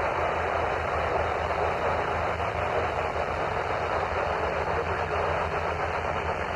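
Steady radio static: an even hiss, cut off above the voice band, with a low hum underneath and no signal on the channel.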